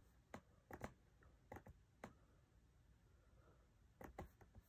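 Faint, scattered clicks of a computer keyboard being tapped in a quiet small room: a few single clicks in the first two seconds, then a quick run of several near the end.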